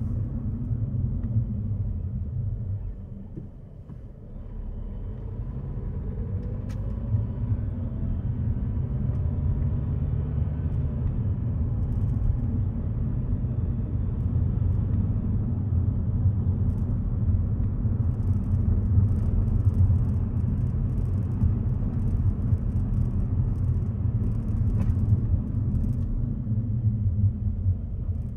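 Car driving: steady low rumble of road and engine. It drops away briefly about three to four seconds in, then builds again with a faint rising engine note.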